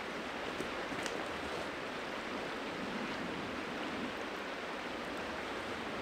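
Steady rush of a river flowing over rocks, with a few faint clicks near the start.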